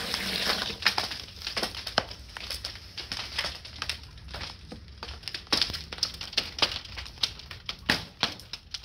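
Backyard rink ice cracking and popping under a fresh flood on a cold night: pressure cracks. Irregular sharp clicks and pops come several a second, with a few louder cracks among them.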